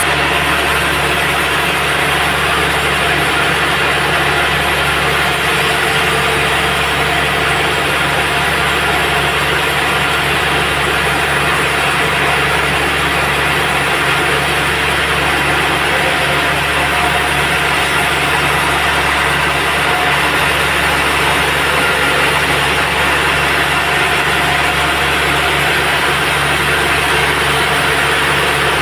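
Band sawmill running steadily: a constant machine drone with a low hum, holding the same level with no pauses or changes.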